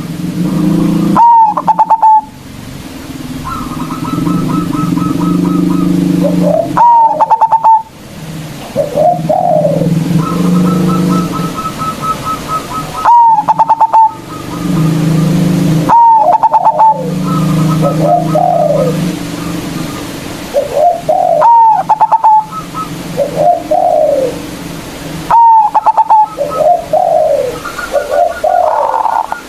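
Zebra dove (perkutut) singing its loud staccato cooing song. Each phrase opens with a rapid run of sharp notes and falls into several rolling coos, and it comes again every few seconds, six times.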